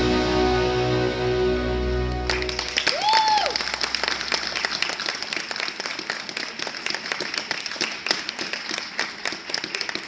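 Figure skating program music playing, cutting off about two seconds in. Scattered applause follows, with a short rising-and-falling whoop just after the music stops.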